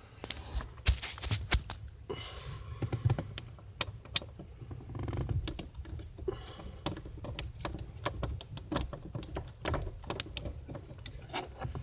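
Hand-tool work behind a car's steering wheel: a small screw being taken out of the steering column housing with a stubby screwdriver, heard as scattered clicks, light knocks and scrapes of tool and hands on the plastic trim.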